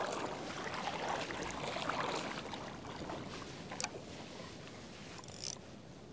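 Legs wading through shin-deep shallow lake water, sloshing and splashing with each step, easing off after a few seconds. One sharp click a little under four seconds in.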